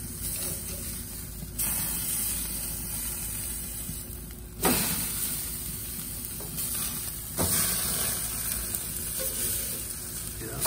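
Ribeye steaks sizzling on a hot propane grill, a steady hiss that jumps louder three times, most sharply with a sudden knock about four and a half seconds in.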